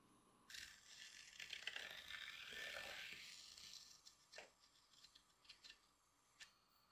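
Sheet of paper rustling and being handled on a work table for a few seconds, followed by several light taps and clicks.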